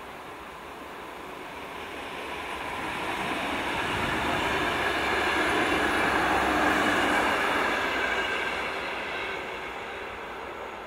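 Older VR electric multiple unit train passing close by: a rush of wheels on rail that swells over about six seconds, peaks, then fades as the last cars go by.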